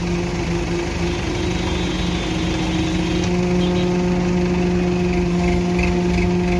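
A large engine on concrete-pouring machinery running at a steady speed, with a constant droning hum.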